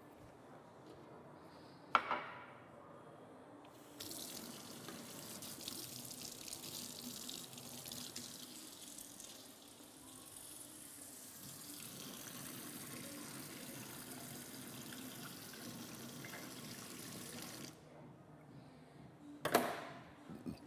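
Water running from a tap, turned on a few seconds in and off again near the end after about fourteen seconds of steady flow. A sharp click comes just before it, and a short loud sound follows near the end.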